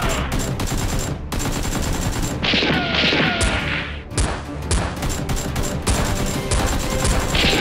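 Rapid bursts of gunfire sound effects, many shots in quick succession, with a short lull about halfway through.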